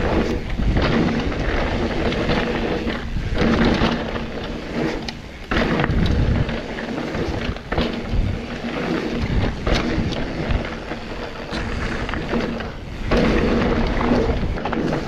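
Mountain bike rolling fast down a dirt trail: tyres on dirt and gravel, with wind buffeting the mic and a few sharp knocks and rattles from the bike over bumps.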